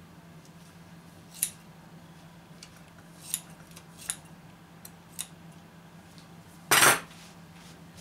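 Metal scissors snipping feathers off a turkey-wing mount: a few sharp metallic snips, then a louder clatter near the end as the scissors are put down.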